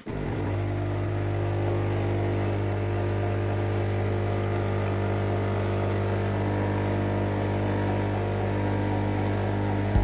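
An electrical machine switches on and runs with a steady, even hum: a strong low buzz with many overtones, typical of mains-powered equipment.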